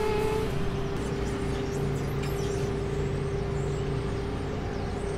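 City street traffic: a steady drone of vehicle engines and road noise, with one constant hum running through it.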